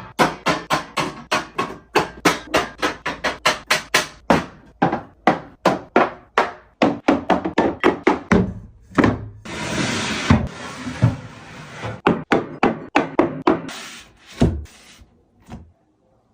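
Rapid run of knocks, clacks and thunks, about three or four a second, from containers and food items being set down and handled while restocking a refrigerator, with a few seconds of hissing noise in the middle.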